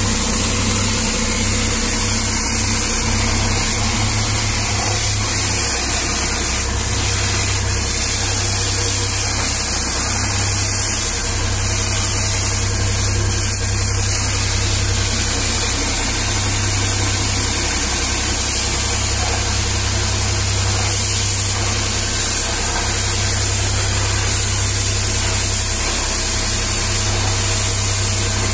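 High-pressure water jet hissing steadily as it blasts the tyres and underbody of a large mining dump truck, over a steady engine drone.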